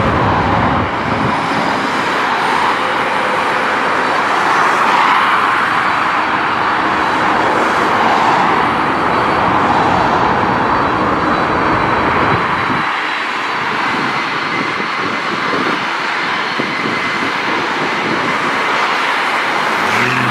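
Road traffic passing close by on a busy highway: a steady wash of tyre and engine noise that swells and fades as cars go past, with jet aircraft noise from the airport underneath. A heavier vehicle's low engine hum comes in near the end.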